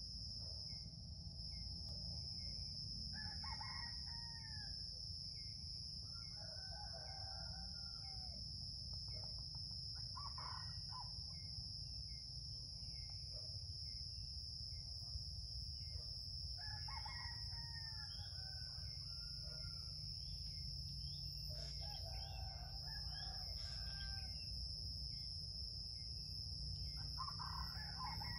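Junglefowl rooster crowing, about six short crows spaced several seconds apart, over a steady high-pitched drone.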